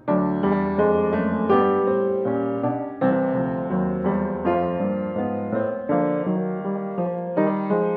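Solo piano music, chords and melody notes struck a few times a second.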